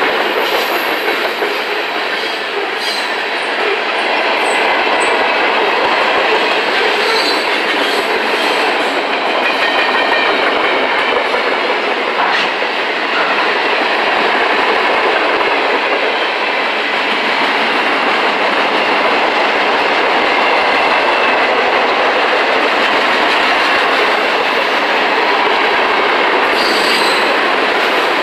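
Freight cars (covered hoppers and tank cars) of a Norfolk Southern freight train rolling past close by: the steady, loud noise of steel wheels running on the rails.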